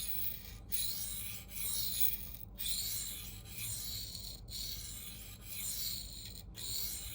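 A CPM 4V steel knife edge scraping back and forth on a 1200-grit Sharpal diamond plate, in strokes of about a second with short breaks between them. This is the refining stage, evening out the scratch pattern and flipping the burr from side to side.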